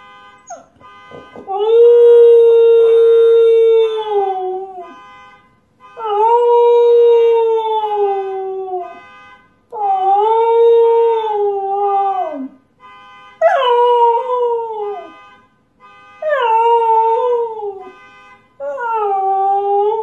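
Husky howling six times, each howl long and held, then sliding down in pitch at the end; the later howls start high and fall more steeply. The howling is set off by a car alarm.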